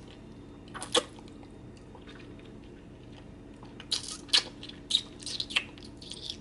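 Spoon scraping and clicking in a gelato container: one sharp click about a second in, then a quick run of short scrapes and clicks from about four seconds.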